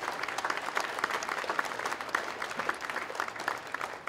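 Audience applauding: many hands clapping at once in a steady, dense patter that starts to thin out near the end.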